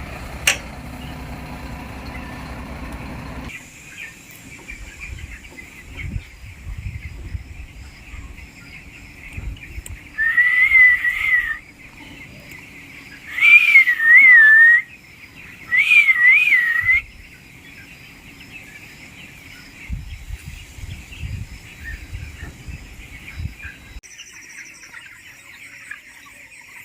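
A vehicle engine hums and cuts out about three and a half seconds in. Later come three loud, wavering whistled calls, each lasting a second or so, a couple of seconds apart.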